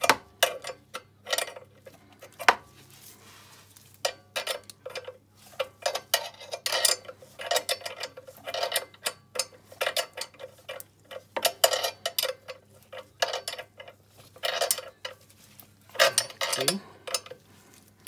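Steel spanner clicking and clinking against the nuts of an ATV's rear-axle chain adjuster as the lock nut is tightened. Irregular short clusters of sharp metal clicks, with a short lull a few seconds in.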